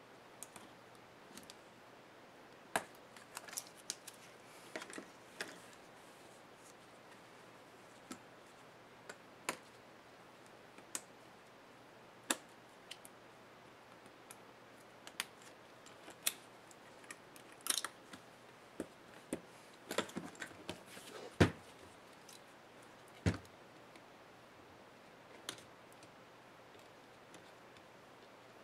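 Irregular light clicks and taps of a small screwdriver and hands on the plastic and metal of a laptop screen assembly as the LCD panel is worked loose from its bezel, with two louder knocks about three quarters of the way through.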